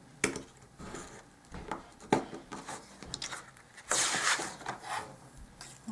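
Sheet of cardstock and an acrylic ruler handled on a cutting mat: a few light clicks and taps, then a rustling, sliding paper sound about four seconds in as the sheet is shifted.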